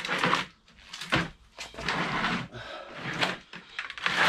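Cast iron brake discs being handled and stacked together: a series of clunks and scrapes, with a longer scrape near the end.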